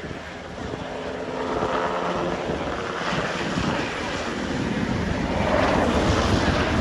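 H-60-type military helicopter flying a display pass, its rotor and turbine noise growing louder toward the end.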